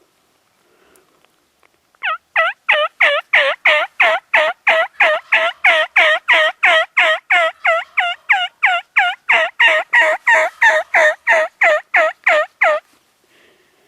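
A long series of turkey yelps: about 35 evenly spaced, loud notes, roughly three a second, each breaking from high to low. They start about two seconds in and stop near the end.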